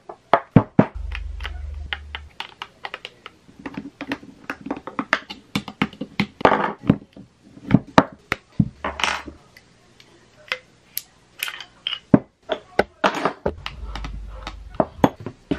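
Small metal parts of a Sheridan PGP paintball pistol being taken apart by hand and with a screwdriver: a quick run of clicks, clinks and knocks, with a few brief rasps.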